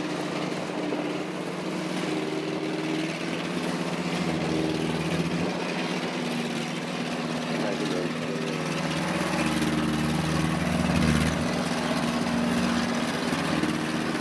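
Kubota DC-70 combine harvester running steadily, its diesel engine note holding with a slight rise and fall in pitch a few times, over the broad mechanical noise of the harvester's machinery.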